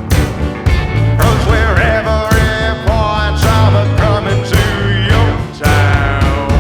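Country rock music with a steady drum beat and bass, and a lead melody bending in pitch over it.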